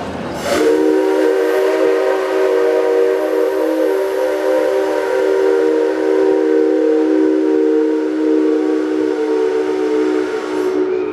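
The whistle of the C57 135 steam locomotive blows one long blast lasting about ten seconds. It opens with a short rush of air and then holds a steady chord of several tones.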